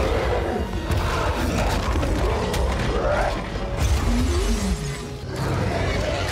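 Action-film sound mix: a giant wolf snarling over dramatic orchestral music, with deep booms and crashing, shattering impacts.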